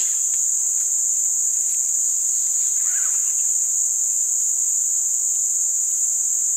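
Insect chorus from the rainforest: a steady, high-pitched continuous drone that does not let up.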